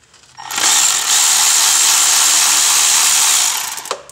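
Cordless electric ratchet running steadily for about three seconds, starting about half a second in, spinning the 8 mm nut off the alternator's cable terminal.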